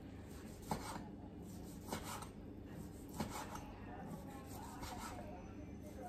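Kitchen knife slicing through roast beef on a plastic cutting board: faint rasping strokes of the blade, with three sharp taps of the knife on the board a little over a second apart.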